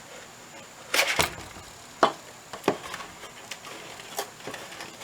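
A knife blade slicing through a thin cardboard box, giving a series of short crackling snaps, the loudest cluster about a second in.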